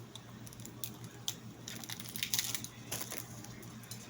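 Someone biting into and chewing a Nature Valley cinnamon almond butter bar, with a scatter of small, sharp crunching clicks.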